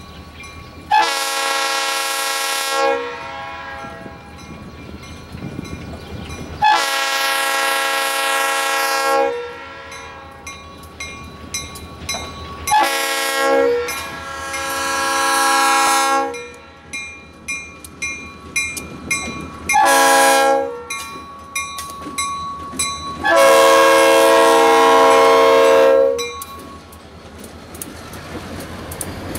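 Diesel locomotive's multi-chime air horn blowing a grade-crossing signal: four long blasts and one short one near the end, with the short blast before the last long one. Between blasts the locomotive's engine runs and the wheels click over the rail joints as the train passes.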